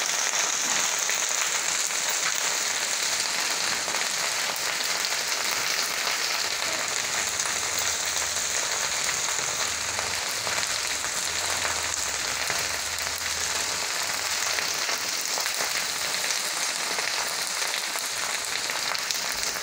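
Cut okra frying in hot oil in a steel kadhai over full flame: a steady sizzle.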